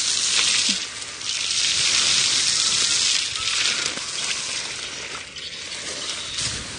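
Strong jet of water from a hose splashing onto bare soil and dry coconut leaves, a steady loud hiss and spatter. It drops briefly about a second in and turns quieter after about four seconds as the jet is aimed closer to the ground.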